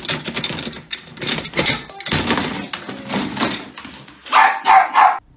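Wire door of a plastic pet carrier rattling and clattering in quick, irregular bursts, with three loud bursts in close succession near the end.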